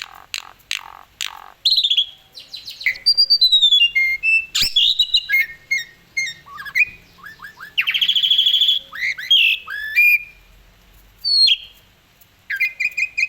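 Asian pied starling (jalak suren) singing a loud, varied song: whistled slurs, quick chirps and a harsh rattling phrase, with short motifs repeated, in a song full of borrowed phrases.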